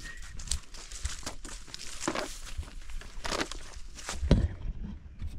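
Footsteps on a dirt forest trail, with dry leaves and brush crunching and rustling underfoot at an uneven walking pace. One heavier thump stands out about four seconds in.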